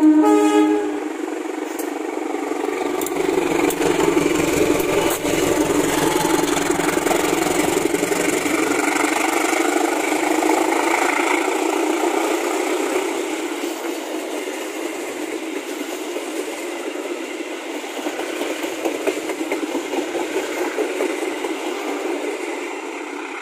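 Diesel-electric locomotive sounds a brief horn blast, then passes close by with its engine running under load, followed by a long string of passenger coaches rolling past, wheels running on the rails, the sound slowly fading.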